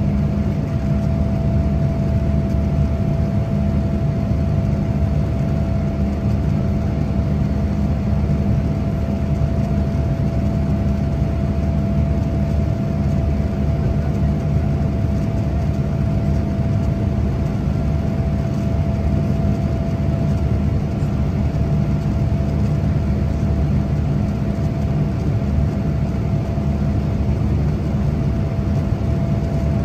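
Cabin noise of a Boeing 787-8 airliner during its climb after takeoff: a steady, deep rush of jet engine and airflow noise with a constant mid-pitched whine running through it.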